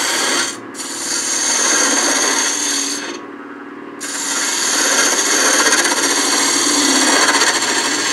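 Spindle gouge cutting a spinning wooden pepper-mill blank on a wood lathe, knocking off the corners to shape a large bead at the end: a steady hiss of shavings. The cut stops briefly about half a second in and again for about a second around three seconds in.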